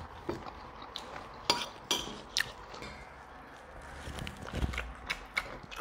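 Forks clinking and scraping against plates while eating noodles: a handful of short, light clicks scattered through.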